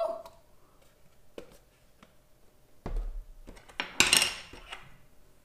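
Tableware handling: a short knock at the start, a dull thump about three seconds in, then a spoon clattering and scraping in a ceramic bowl of milk-soaked cereal about four seconds in, the loudest part.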